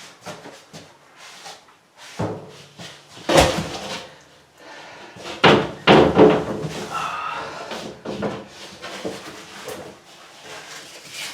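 A sheet of cement backer board being handled and fitted against the shower wall: knocks and thumps with scraping, the loudest knocks about a third of the way in and again near the middle.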